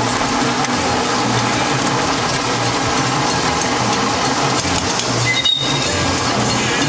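Ride-on miniature railway train running along its track: a steady rumble and clatter of wheels and running gear with a low, uneven pulsing, briefly cutting out about five and a half seconds in.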